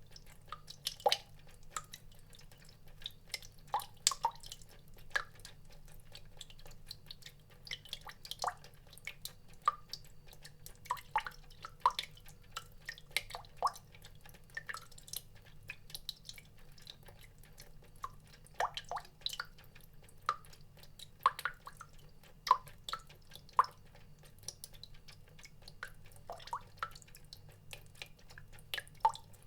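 Water drops falling into water at an irregular pace, about one to three a second, each a short pitched plink.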